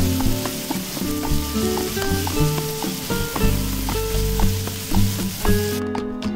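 Sliced bitter melon sizzling as it fries in a nonstick pan, stirred with a spatula, over background music. The sizzling cuts off suddenly near the end, leaving the music alone.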